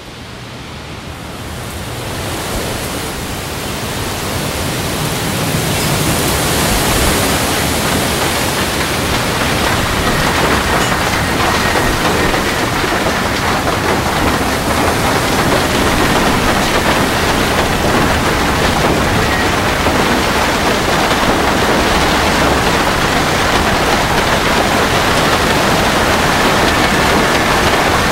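A hailstorm: rain and hail coming down hard as a dense, steady hiss. It swells over the first several seconds, then holds at full strength.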